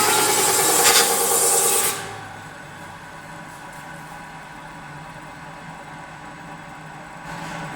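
CNC metal spinning lathe forming a 1.5 mm cold-rolled steel sheet: the forming roller pressing on the spinning blank gives a loud hiss with ringing tones that stops suddenly about two seconds in. The machine then runs on with a much quieter steady hum.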